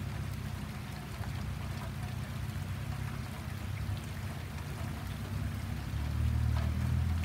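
Low, steady rumble of an approaching freight train's diesel locomotives, growing louder about six seconds in, with rain pattering.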